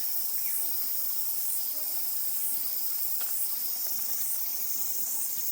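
Steady high-pitched insect chorus, a shrill hiss that swells in soft pulses about once a second.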